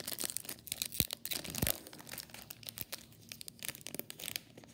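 A Topps Chrome trading card pack's wrapper being torn open and crinkled by hand: a dense run of crackles and snaps, busiest in the first two seconds and thinning toward the end.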